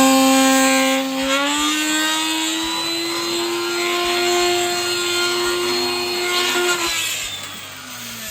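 Small electric power tool motor running at a steady high pitch while cleaning the weld bead from the welded corners of a PVC window sash, then switched off about seven seconds in and spinning down with falling pitch.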